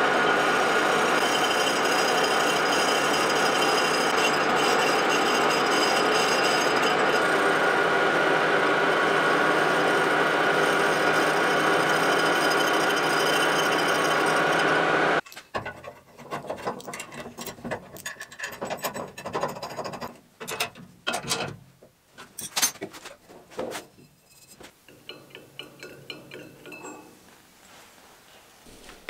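Metal lathe turning a steel conveyor roller while the cutting tool shapes it convex: a steady whir with ringing tones. About halfway through it cuts off and gives way to scattered knocks and scrapes of metal parts being handled.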